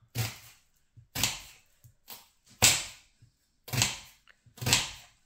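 Kitchen knife chopping through an onion onto a plastic cutting board: about six sharp knocks, roughly one a second, the loudest near the middle.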